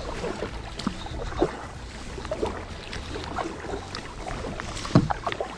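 Double-bladed kayak paddle dipping and pulling through calm sea water, giving short irregular splashes and drips, with a sharper splash or knock about five seconds in. A steady low rumble runs underneath.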